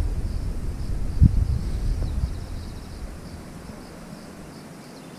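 Insects chirping steadily in a faint, high, pulsing drone. Under it, a low rumble with a single bump about a second in, which dies away a little past halfway.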